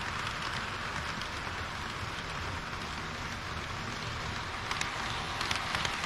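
HO-scale model trains running on sectional track: a steady rattle of metal wheels rolling on the rails with a low motor hum. A quick run of clicks comes near the end as a car passes close over the rail joints.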